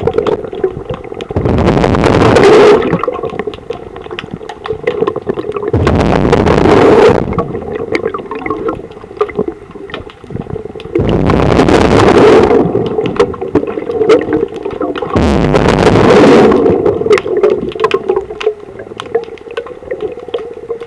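Underwater breathing of a diver: loud rushes of exhaled bubbles about every four to five seconds, with a steady bubbling hum between them.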